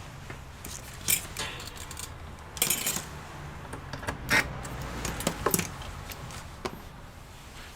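Irregular clicks and light metallic clinks from handling tools, screws and casing parts while taking apart a small desktop computer. The loudest clink comes about four seconds in.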